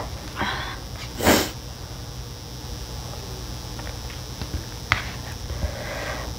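A person slurping instant black-bean noodles, with a sharp loud slurp just over a second in after a shorter one, then quieter chewing broken by a few light clicks.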